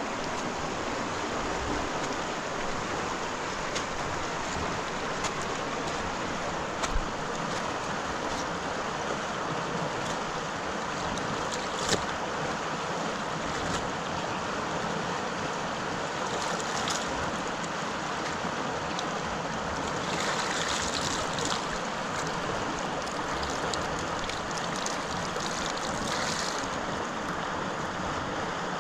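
Steady rushing noise of lake water and wind, with a few scattered sharp knocks.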